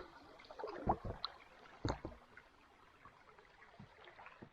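Soft water sounds: a few small splashes and gurgles, the two clearest about one and two seconds in, over faint river water.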